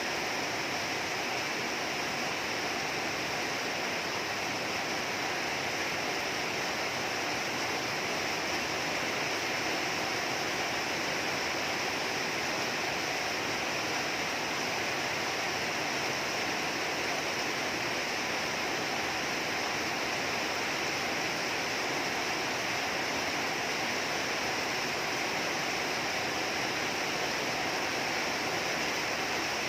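Rain falling steadily, an even hiss of water with no break.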